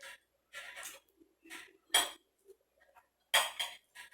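Cutlery clinking and scraping against a plate, with two sharper clinks about two seconds and three and a half seconds in.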